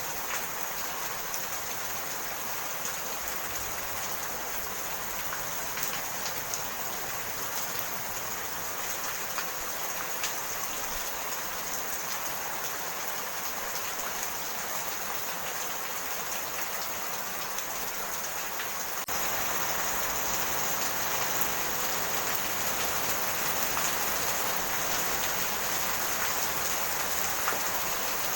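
Steady rain falling, a dense even hiss flecked with individual drops ticking. About two-thirds of the way through it suddenly becomes louder and stays so.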